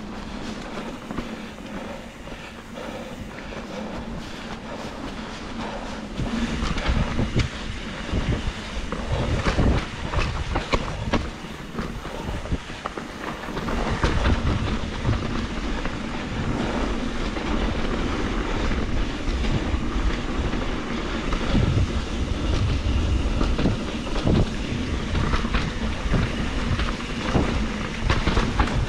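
2021 Trek Slash 7 mountain bike riding fast down a dirt flow trail, heard from a camera on the bike or rider. A steady rushing noise runs throughout, with the bike's frame and chain clattering and knocking over bumps. It grows louder and busier about six seconds in.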